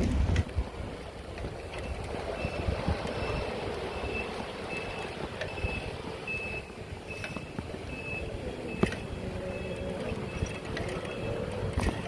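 A vehicle's reversing alarm: short high beeps repeating about two and a half times a second, starting about two seconds in, over steady street and traffic noise. One sharp click sounds near the end.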